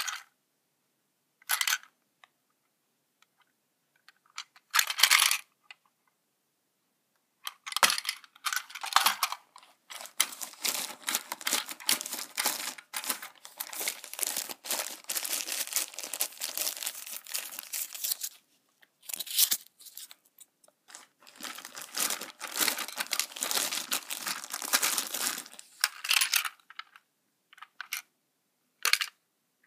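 Plastic Plarail toy train cars (yellow Seibu 9000 series) being handled: bursts of clicking, rattling and crinkling, a few short ones at first, then almost continuous from about ten seconds in until shortly before the end.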